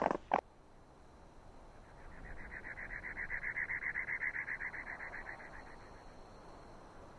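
An animal's rapid, high-pitched pulsed trill, about nine pulses a second, swelling and then fading over about four seconds.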